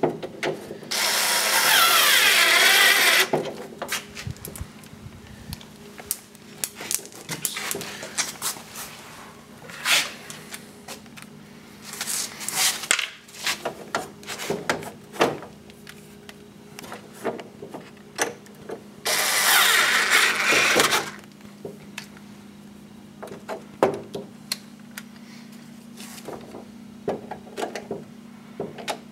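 Black & Decker cordless screwdriver with a socket bit running in two spurts of about two seconds each, driving the window regulator's mounting screws into a Jeep Wrangler door. Between the spurts come scattered clicks and knocks of handling.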